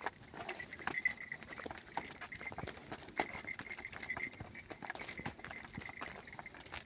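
Cattle hooves knocking and shuffling on the ground in irregular clip-clop steps, with a faint thin high tone coming and going in the background.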